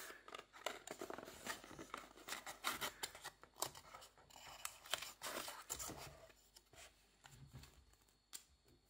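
Faint, irregular scraping and rustling of thin cardboard packaging as its flaps are opened and handled, with a paper leaflet being drawn out; the handling noises thin out near the end.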